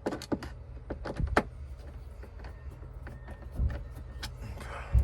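Hand work on a car's interior trim while a sun visor is taken out: a string of small clicks and knocks from plastic parts and a hand tool. Heavier thumps come about a second in, at about three and a half seconds, and near the end.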